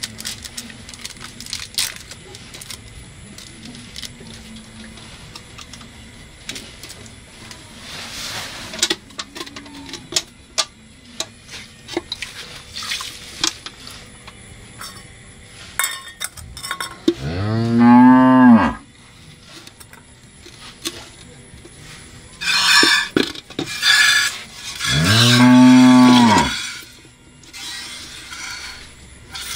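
A cow mooing twice, about eight seconds apart, each a long low call that rises and then falls in pitch. Between and around the calls, milk squirts in short hissing jets into a metal pail as the cow is milked by hand.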